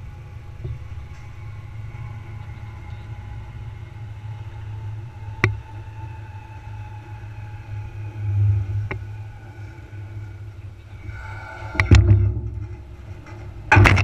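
Low steady rumble of a farm tractor and grain trailer running over the field, broken by sharp knocks and rattles from the trailer body, with a louder clatter near the end.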